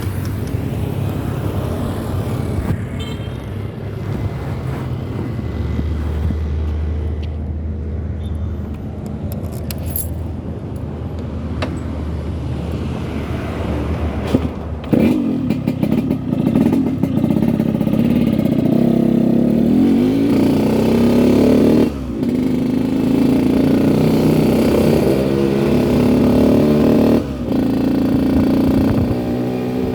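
Yamaha RX-King two-stroke single-cylinder motorcycle engine running, with a 'ngorok' (snoring) note. It idles steadily for about the first half, then is revved repeatedly, its pitch rising and falling with each blip of the throttle and dropping back briefly twice near the end.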